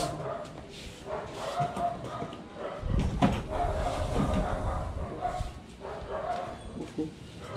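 Kennelled Phu Quoc ridgeback dogs whining and yipping in short, repeated calls. A low rumble with a sharp knock comes in about three seconds in.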